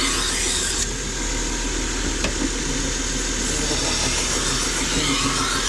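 Toolker 1x30 belt grinder's motor running steadily, with the belt hissing.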